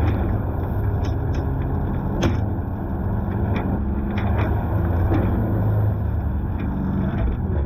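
Can-Am X3 side-by-side engine running steadily as the machine drives, with scattered sharp knocks and rattles, the loudest about two seconds in.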